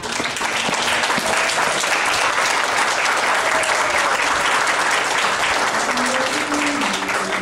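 A crowd of guests applauding steadily, with a few voices calling out over the clapping.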